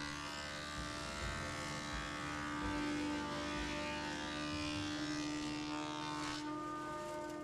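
Thickness planer and its dust extractor running: a steady motor hum with a hiss over it, the hiss dropping away about six seconds in. The sound is turned well down from how loud these machines really are.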